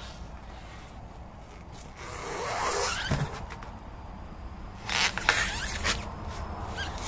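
Rubber car tyres being lifted and shifted in a stack: rubber rubbing and squeaking against rubber about two seconds in, then a quick cluster of knocks and scrapes about five seconds in.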